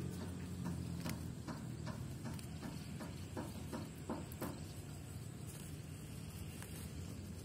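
Cow grazing on dry rice stubble, tearing and cropping the stalks in a run of crisp crunches about two or three a second that stop about halfway through. A vehicle engine fades out at the start.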